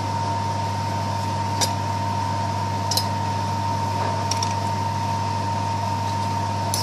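A steady low hum with a thin high-pitched tone held over it, and a few faint, brief clicks.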